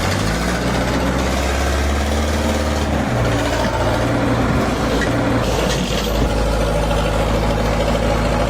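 A heavy engine, such as a truck or construction machine, running steadily, its low note shifting to a new pitch about three seconds in.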